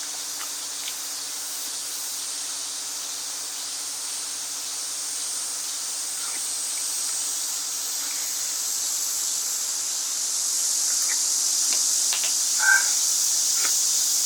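Outdoor insect chorus: a steady high-pitched shrill drone that swells slightly in the second half. A brief chirp stands out near the end.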